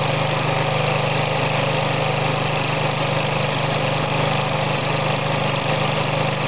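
Briggs & Stratton 550 EX Series single-cylinder OHV lawn mower engine running steadily at its fixed speed, with no throttle. It is running well with its compression restored after a no-compression repair, and is still warming up, so the muffler-heated choke is not yet fully off.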